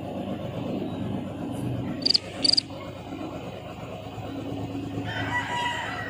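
A rooster crowing in the background near the end, over a low steady rumble. About two seconds in come two short, sharp, high squeaks close together, the loudest sounds here.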